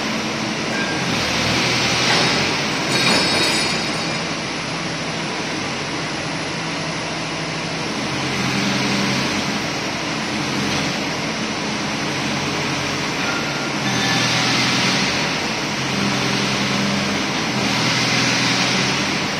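Hydraulic excavator's diesel engine running under hydraulic load as the boom and car-dismantling shear are worked, rising and falling in level a few times as the engine takes the load.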